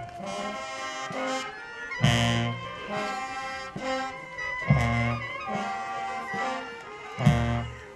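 Brass band playing a slow march with sustained horn notes, with a loud low beat about every two and a half seconds.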